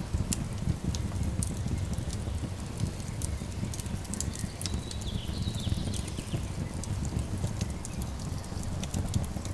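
Wood fire crackling, with irregular sharp pops over a steady low rumble. A bird gives a brief falling call about five seconds in.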